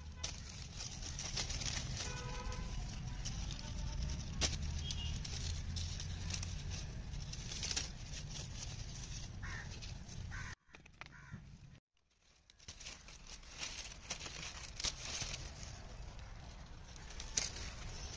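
Guava leaves and twigs rustling and crackling as a hand moves through the branches, over a steady low rumble of wind on the microphone. A bird calls briefly about two seconds in.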